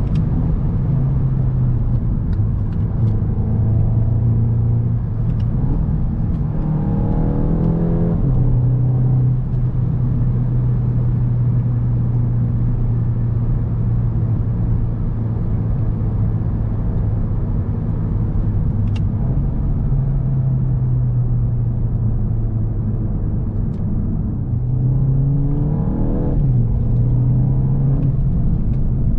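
2021 VW Golf GTI Mk8's turbocharged 2.0 TSI four-cylinder engine driving at steady revs over road rumble. Twice, about a quarter of the way in and near the end, the engine note climbs under acceleration and then drops suddenly as the 7-speed DSG gearbox shifts up.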